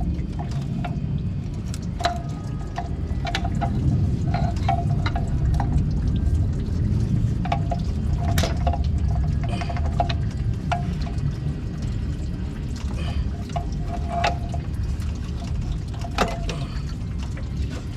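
Engine coolant pouring and dripping out as a coolant pipe is worked off the engine, with short metal tool clinks every second or so.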